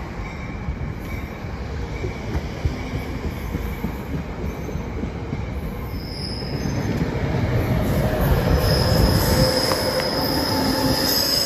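A train running along the tracks on the embankment, with a steady low rumble. A high, steady wheel squeal comes in about halfway, and the sound grows louder toward the end.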